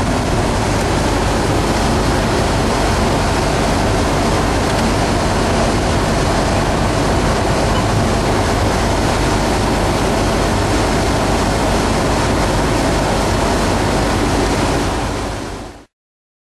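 Case IH 6088 combine's 8.3-litre six-cylinder diesel running steadily, heard from inside the cab as a loud, even noise over a low hum. It fades out and cuts off near the end.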